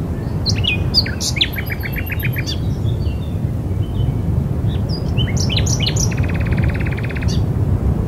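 Songbirds singing in two phrases of short chirps and quick trills, the first about half a second in and the second about five seconds in, over a steady low rumble of wind.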